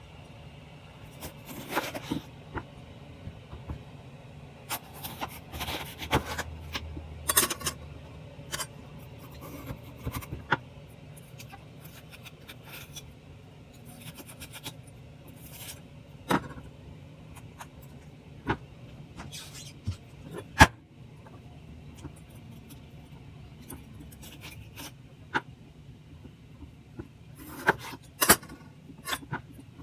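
Irregular plastic clicks, snaps and scraping as a Fujifilm disposable camera's body is handled and pried open by hand. Sharp clicks come scattered throughout, in clusters about two, six to seven and twenty-eight seconds in; the loudest is a single click about twenty seconds in.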